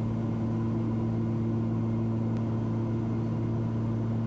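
Cessna 340's twin piston engines and propellers droning steadily in cruise, a constant low hum with a steady tone and no change in pitch.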